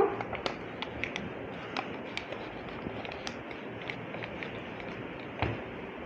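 A sheet of A4 paper being folded and creased by hand: scattered small crinkles and taps, with one louder tap about five and a half seconds in, over a steady background hiss.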